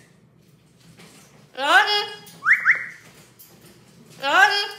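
Amazon parrot calling twice, each time a rising, voice-like call followed by two quick upward whistles.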